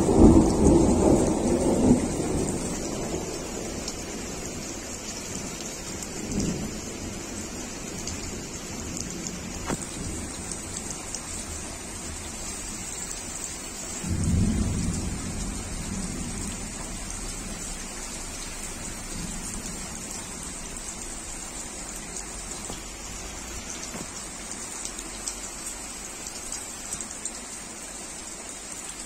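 Heavy rain falling steadily, splashing on leaves, wet paving and a water-filled flowerpot. Thunder rumbles loudly at the start and dies away over a few seconds, and a second, shorter roll of thunder comes about halfway through.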